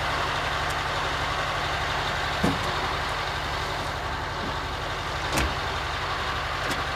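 Military truck's engine idling steadily, with a few sharp knocks, the loudest about five and a half seconds in.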